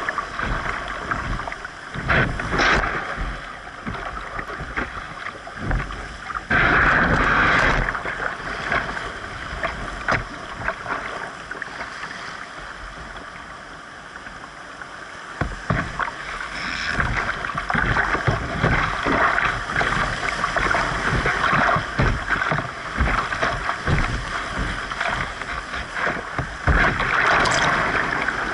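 Whitewater rapids rushing past a canoe hull, with water splashing against the boat in louder surges about seven seconds in, through the middle, and again near the end, and frequent low knocks of water striking the hull.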